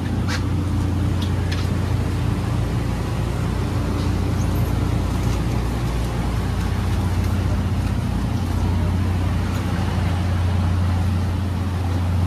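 Steady low rumble and hum of a train, heard from inside a passenger coach of the SL Gunma Yokokawa.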